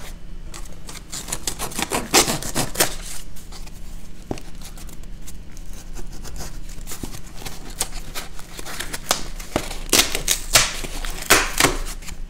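Small knife slitting packing tape along the seam of a cardboard box: a run of scratchy cutting strokes and taps on the cardboard, louder about two seconds in and again near the end.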